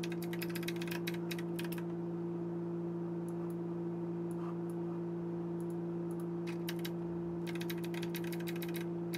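Typing on a computer keyboard: quick runs of key clicks in the first couple of seconds and again near the end, with a few in between, over a steady low electrical hum.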